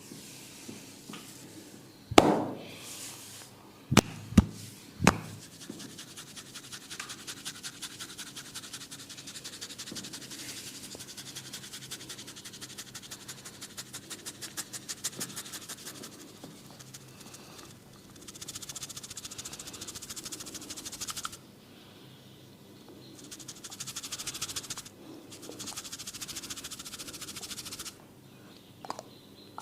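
Barber's hands working the head and hair: a few sharp, loud cracks in the first five seconds, then about ten seconds of rapid, even crackling from hair cracking. Later come two spells of hissy scratching and rubbing on the hair.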